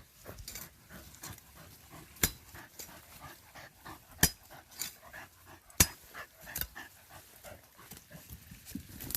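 Three hard chopping strikes into a root in the dirt, about two, four and six seconds in, with a dog heard at the hole between the strikes.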